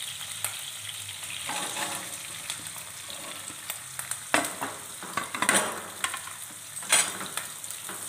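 Chopped shallots and green chillies sizzling in hot oil in a nonstick kadai as they are stirred with a metal slotted spoon. Steady sizzling hiss with several sharp scrapes and clatters of the spoon against the pan, the loudest between about four and seven seconds in.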